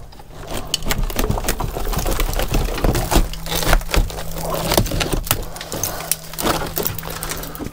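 Rotten timber of a wooden boat's beam shelf being pulled and broken apart by hand, with irregular cracking, splintering and crumbling. A steady low hum joins about three seconds in.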